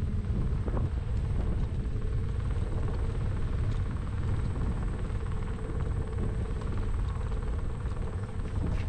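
A vehicle's steady low rumble, with a thin steady hum over it.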